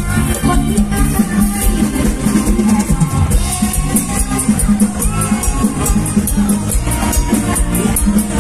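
Loud live mor lam band music with a drum kit keeping a steady beat.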